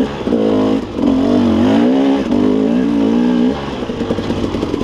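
KTM 300 two-stroke dirt bike engine revving up and down under throttle while riding. The note wavers repeatedly, eases off about three and a half seconds in, and picks up again near the end.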